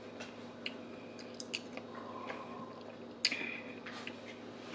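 A person chewing a mouthful of food close to the microphone: soft wet mouth sounds with scattered small clicks, and one sharper click about three seconds in.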